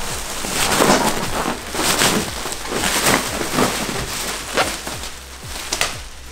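Crackling rustle of a plastic wrapper and batting being pulled apart and tossed about by hand, with a few dull handling thumps.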